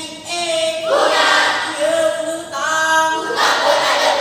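Mixed group of school boys and girls singing together in unison as a choral speaking ensemble, in held notes, with a new phrase starting about a second in and again about two and a half seconds in.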